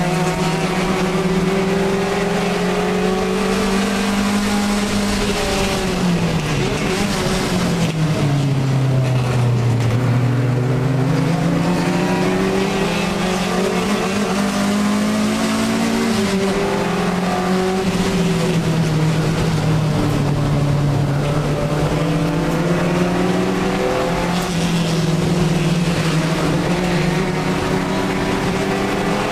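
Alfa Romeo 1750 GTV's twin-cam four-cylinder engine racing, heard from inside the cabin. The revs hold, fall away for a few seconds, climb back up, then drop sharply at a gear change about halfway through and hold steady again.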